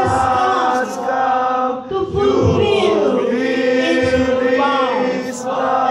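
A large group of voices singing a song together in unison, held notes with short breaks between phrases.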